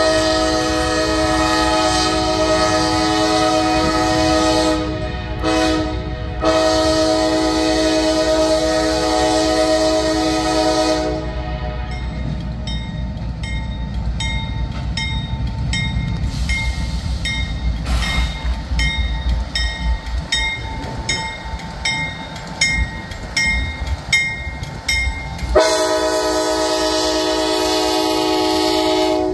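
Norfolk Southern road diesel's multi-chime air horn blowing a long warning blast of about eleven seconds, broken twice briefly, over the locomotive's engine rumble. Then the locomotive bell rings steadily about twice a second as the train rolls closer. Near the end the horn blows again as the locomotive passes close by.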